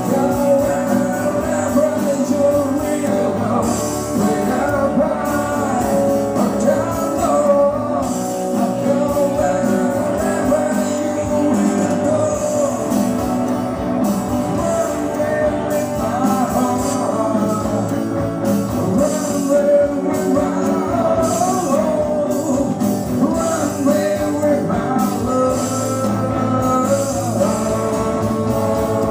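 A live band playing: a man singing into a microphone over acoustic and electric guitar.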